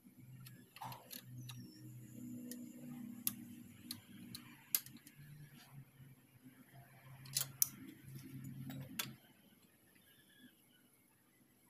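Scattered sharp metal clicks and clinks of a socket wrench and a combination wrench working a nut and washer on a motorcycle engine-breather bracket, over a low steady hum that cuts off about nine seconds in.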